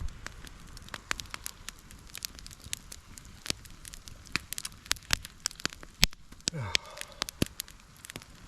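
Campfire crackling, wood burning with irregular sharp pops and one louder pop about six seconds in.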